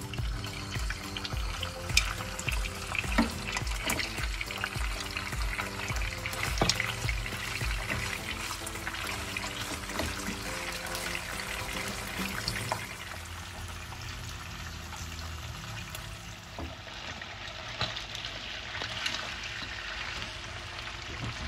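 Pieces of salted jambal fish sizzling and crackling as they fry in hot oil in a pan, with scattered sharp clicks as a spatula stirs them. Background music plays underneath.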